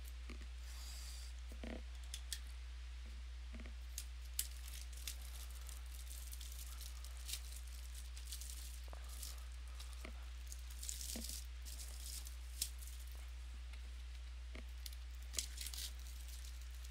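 Scattered light clicks and short crinkly rustles of things being handled, over a steady low hum.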